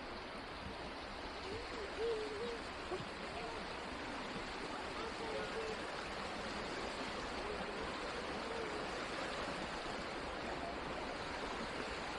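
Stream water rushing steadily over rocks, with a few faint voices in the distance.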